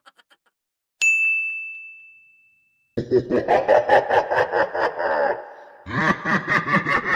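A single high 'ding' sound effect about a second in, ringing on one tone and fading out over a second and a half. From about three seconds in a laughing sound effect follows: pulsing laughter that breaks off for half a second and starts again.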